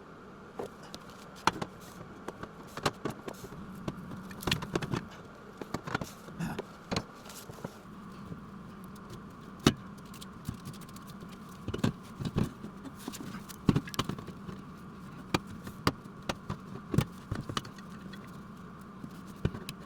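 Irregular light metallic clicks and knocks, a few to several per second, over a steady machine hum.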